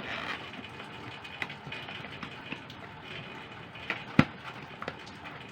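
Small clicks, taps and rustles from a Bluetooth speaker and its charging cable being packed back into the cardboard box, with the sharpest knock about four seconds in.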